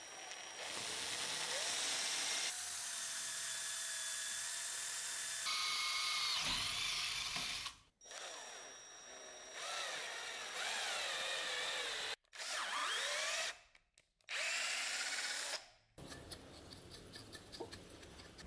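Electric hand drill boring, first through a wooden handle block with a long bit, then into a metal guard blank held in a vise, in several short segments that start and stop abruptly. The motor's pitch wavers as the bit loads up. In the last two seconds it gives way to softer, evenly repeated strokes.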